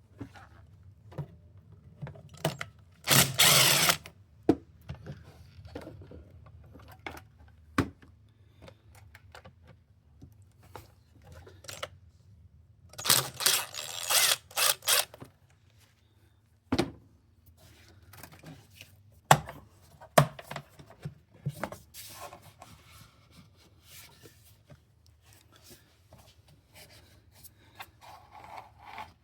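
Hand work on a car's engine bay with tools: scattered clicks and knocks, and two loud bursts of rapid tool noise, one about a second long and one about two seconds long. A faint low steady hum runs underneath.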